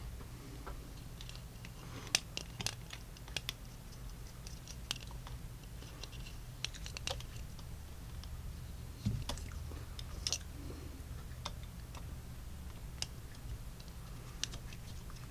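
Scattered light clicks and ticks of a small screwdriver and metal revolver parts as screws are driven into a grip frame. A steady low hum sits underneath.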